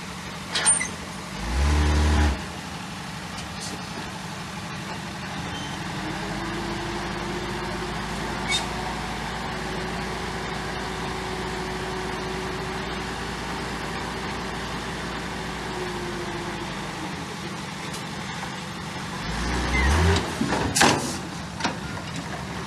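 Heavy diesel construction machinery running steadily, with a louder surge about two seconds in and another near the end, and a few sharp clanks.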